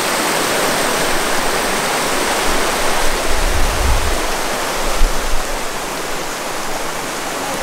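Shallow mountain river rushing and splashing over boulders in small rapids: a steady, even rush of water, with a couple of brief low rumbles around the middle.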